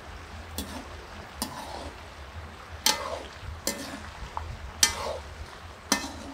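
Perforated stainless skimmer spoon scraping and clattering against a metal wok as peanuts and garlic are stirred in hot oil, about once a second. The peanuts rattle as they are tossed, over a faint frying sizzle.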